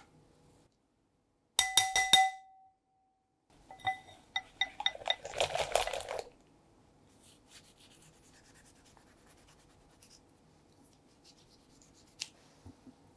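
Wire whisk in a glass bowl: a quick run of sharp clinks about two seconds in, with the bowl left ringing, then more clinks and fast whisking of eggs and sugar until about six seconds in. After that it is mostly quiet, with a single soft click near the end.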